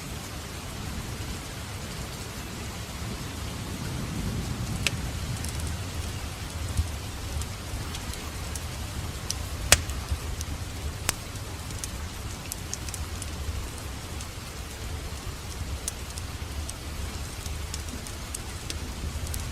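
Wood fire burning in a fireplace: a steady low rumble with scattered crackles, and a sharp pop about ten seconds in followed by another a second or so later.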